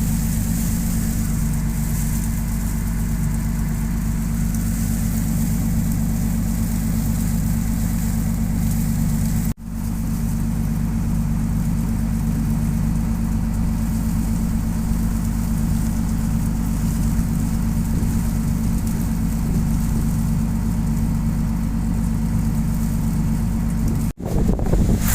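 Boat engine running steadily with a low, even hum, cutting out briefly twice.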